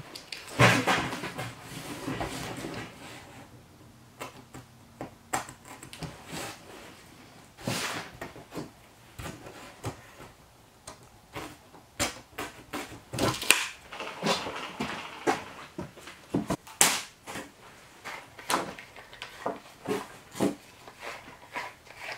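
Handling sounds of measuring and marking a sheet of foam insulation board: a steel tape measure being pulled out and laid on the board, and a pencil drawing along it. The sound is scattered clicks, taps and light scrapes, with a longer scraping rustle in the first few seconds.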